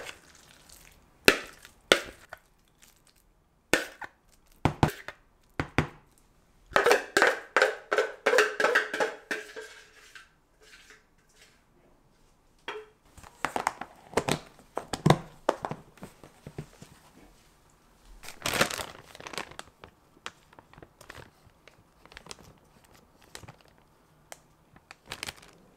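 Kitchen handling sounds: a spoon scraping potato salad out of a mixing bowl into a plastic storage container, with a rasping run of scrapes a few seconds in. Scattered clicks, knocks and crinkles of utensil, bowl and plastic come before and after it.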